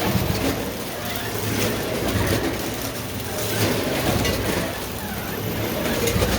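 CAM 14-head multihead weigher and FV210 vertical form-fill-seal bagger running pancakes at 30 packs a minute: a steady machine noise with sharp clicks every second or two.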